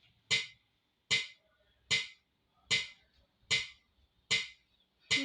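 Metronome ticking a steady beat, seven sharp clicks evenly spaced about 0.8 seconds apart (around 75 beats a minute), setting the tempo.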